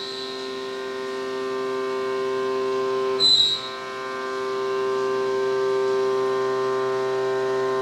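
Haas UMC 750 SS five-axis CNC mill cutting aluminum with a 3/8-inch end mill, with the coolant off: a steady, pitched whine from the spindle and cutter. About three seconds in there is a short, high squeal.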